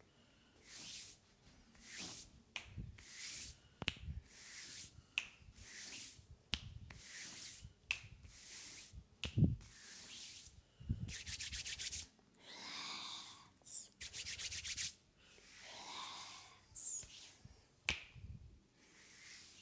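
Hands massaging oiled skin: short rubbing strokes about once a second, set off by sharp snaps or cracks, the loudest about halfway through. Twice, around two-thirds of the way in, the rubbing gives way to a quick run of even tapping.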